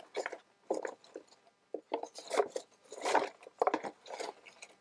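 Paper rustling and crinkling in irregular bursts as paper pieces are handled and shuffled through.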